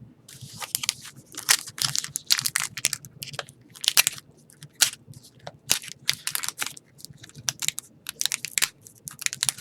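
Plastic trading card pack wrapper being crinkled, squeezed and torn in irregular crackling bursts. The pack is stubborn and hard to get open.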